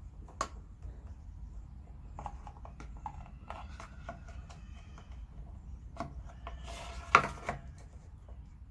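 Scattered clicks and knocks of hand work while a junction box for armoured cable is fitted, with clusters of small ticks and one sharp knock about seven seconds in, over a low steady hum.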